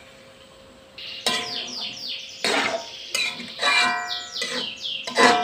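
Pet songbirds singing: a run of quick falling chirps and trills starting about a second in. Mixed with them, a metal spatula clanks and scrapes against a metal wok as vegetables are stir-fried.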